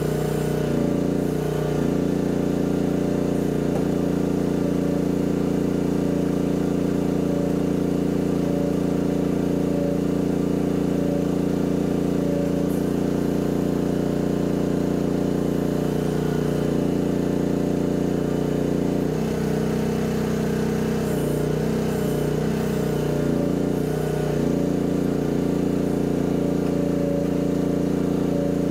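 Mini excavator engine running steadily. Its note wavers briefly about a second in and again between roughly 17 and 24 seconds in.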